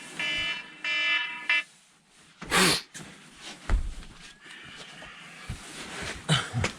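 Electronic bite alarm on a dead-stick line beeping about three times, signalling a fish on the line, followed by a loud rush of noise and scattered knocks and thumps.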